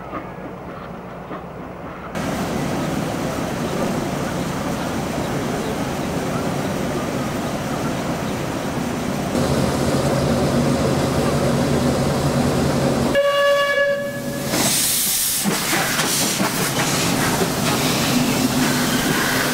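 Hejaz Railway steam locomotive working, with a steady noise of engine and escaping steam. A single short steam-whistle blast comes about two-thirds of the way through, followed by a louder rush of hissing steam.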